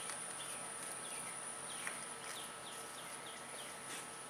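Outdoor ambience: insects keep up a steady high-pitched drone while a bird gives a run of short falling chirps that quicken and then stop about three seconds in.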